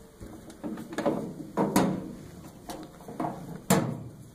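Footsteps on a hard floor with some handling knocks: a few irregular thumps, the loudest a little before the end.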